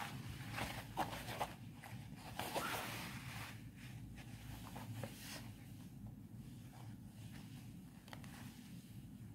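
Embroidery thread drawn through fabric stretched in a hoop, with short rasps and rustles of the cloth being handled, busiest in the first three seconds or so and sparser after, over a low steady hum.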